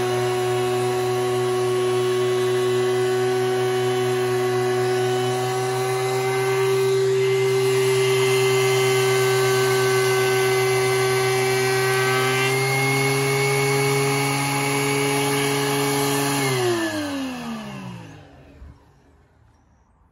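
DeWalt DW735 thickness planer, a 15-amp motor driving a three-knife cutterhead, running with a steady whine as a board is fed through. Its pitch steps up slightly about twelve seconds in. Near the end the motor is switched off and winds down with a falling pitch to a stop.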